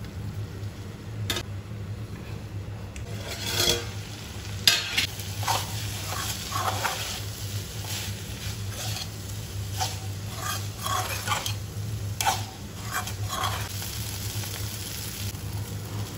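A steel spatula stirring and scraping cauliflower fry around an aluminium kadai, with irregular scrapes and clinks against the pan over a light sizzle. A steady low hum runs underneath; the loudest scrapes come about four and five seconds in.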